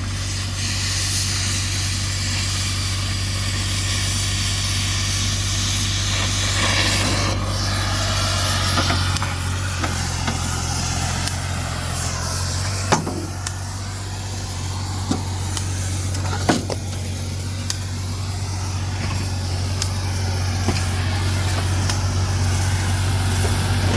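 A heavy engine running steadily at a scrapyard, with a few sharp metal knocks partway through.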